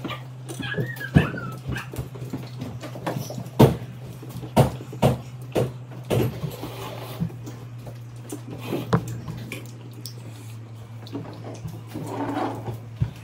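Irregular sharp knocks and clatter over a steady low hum, with a short wavering high whine about a second in.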